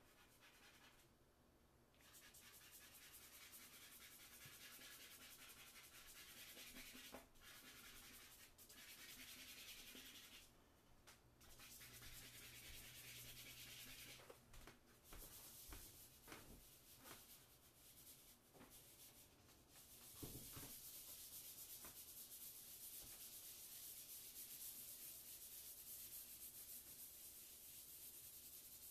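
Faint scratching and rubbing of chalk and charcoal worked across Bristol board, steady strokes broken by a few short pauses.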